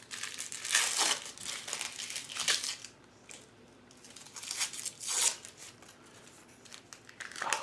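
Wrapping on a bar of handmade soap crinkling and tearing as it is unwrapped by hand, in several short bursts with pauses between.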